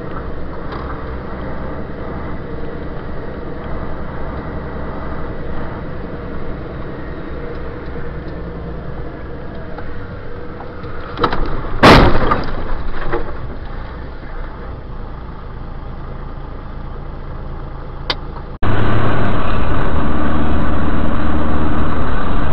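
Steady engine and road noise of a moving vehicle. About twelve seconds in comes a single loud crash with a few smaller knocks after it, typical of a road collision. Near the end the sound cuts abruptly to a louder, steady vehicle noise.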